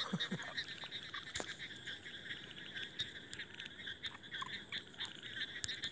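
A steady background chorus of rapid, pulsing animal calls, with a single sharp click about one and a half seconds in.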